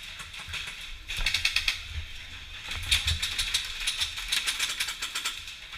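Rapid runs of sharp mechanical clicks, about a dozen a second: a short burst about a second in, then a longer one of about two and a half seconds.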